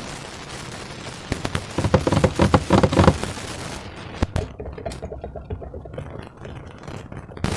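Slime being squeezed and worked by hand, with a dense, quick crackling of little pops that is loudest about two to three seconds in and thinner afterwards.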